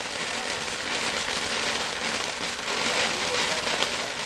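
Consumer ground fountain firework spraying sparks: a steady hiss with fine crackling.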